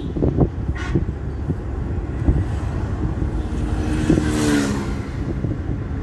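Car driving, a steady low engine and road rumble, with a short pitched hum and a swell of noise about four seconds in, like another vehicle passing.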